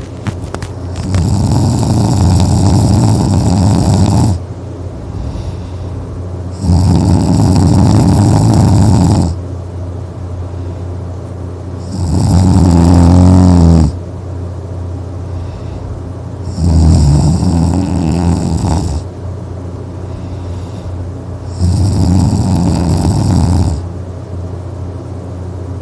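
A person snoring in sleep: five long snores come about every five seconds, each lasting two to three seconds, with quieter gaps between. The third snore is the loudest and has a more pitched, rattling tone.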